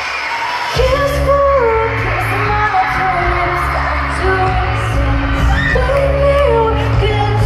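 Live pop music through a concert PA, with a female vocal. About a second in, heavy bass and the full band come in under the bending sung lines.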